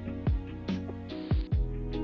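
Background music with a steady beat: a low drum hitting every half second or so under held instrument notes.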